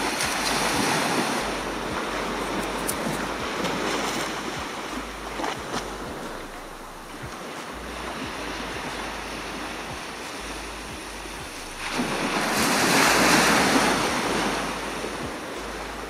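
Surf washing onto the beach as a steady rush that swells and ebbs, with one wave breaking loudest about twelve seconds in. Wind gusts rumble on the microphone.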